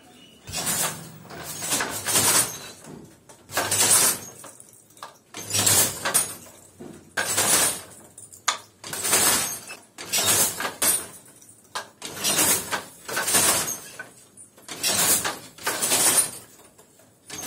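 Wooden silk handloom at work, a regular clacking cycle of one or two sharp wooden knocks about every second and a half to two seconds as the weaver throws the shuttle and beats the weft in.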